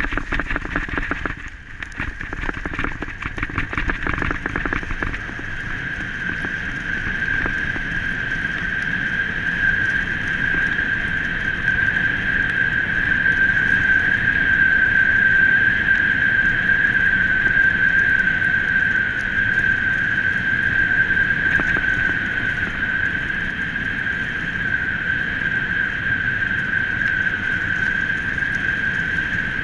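A brake squealing steadily at one high pitch over the rumble of wheels rolling on a rough dirt trail. Rattling and knocking from the rough ground are strongest in the first few seconds.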